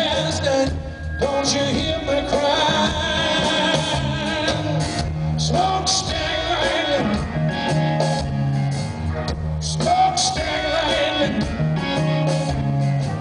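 Blues-rock band playing live, heard from the audience: electric guitar and drums over a steady repeating bass riff, with a male voice singing.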